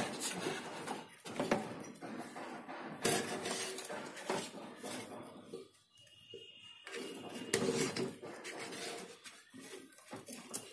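Hands fitting wires onto the terminals of an electric geyser's thermostat and heating element: rustling wire handling with scattered sharp clicks and small metallic clinks.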